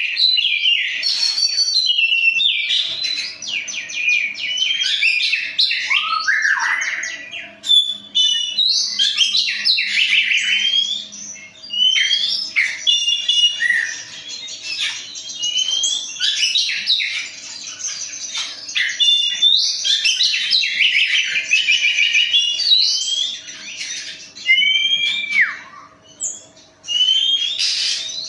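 A pair of songbirds singing together almost without pause, in fast, varied trills, chirps and short whistled phrases. A faint steady hum runs underneath.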